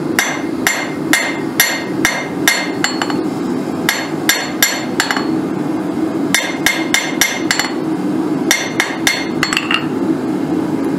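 Hand hammer striking the red-hot end of a steel bolt on an anvil, flattening it, about two ringing blows a second in three runs with short pauses between. A steady low rush runs underneath.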